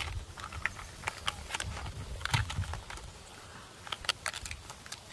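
Blue plastic Takara Tomy toy train track pieces clicking and tapping against each other as they are handled in grass and weeds, a string of light, irregular clicks with some rustling of leaves.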